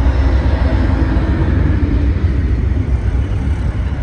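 Three Union Pacific diesel-electric locomotives running light, with no train behind them, passing close by: a loud, deep engine rumble that begins to ease off near the end as the units pull away.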